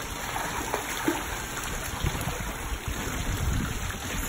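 Pool water splashing and sloshing around a child swimming strokes across a pool.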